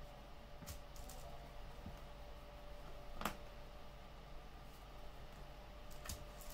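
A few light clicks and taps of trading cards being handled and placed on a table, with one sharper tap about three seconds in, over a faint steady room hum.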